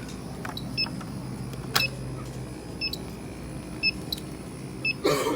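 Electronic refrigerant leak detector ticking with short, high beeps about once a second at its slow idle rate: no refrigerant being picked up. A steady machinery hum runs underneath, with a click about two seconds in and a brief rustle near the end.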